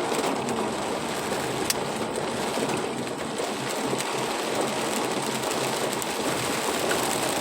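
Steady rain noise mixed with the running noise of a car driving through it, with a few faint sharp ticks like drops striking the car.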